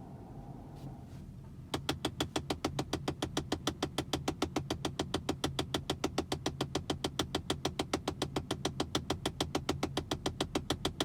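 Fast, even ticking from behind the glove box of a Tesla Model S, about seven clicks a second, starting about two seconds in.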